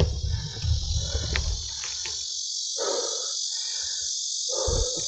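Steady, shrill chorus of insects, with wind rumble on the microphone during the first second and a half.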